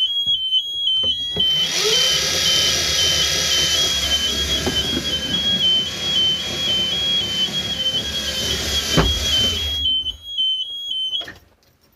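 Aixam Mega Truck electric utility vehicle reversing: a two-tone reverse warning beeper alternates steadily. From about a second and a half in, the freshly repaired brushed DC drive motor runs with a whine that rises as the vehicle picks up speed, mixed with tyre and drivetrain noise. A knock comes near nine seconds, and the driving noise stops about a second later while the beeper carries on briefly.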